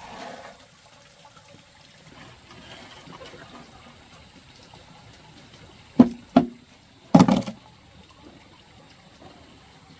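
Water running and pouring, with three short, loud sounds: two close together about six seconds in and a longer one about a second later.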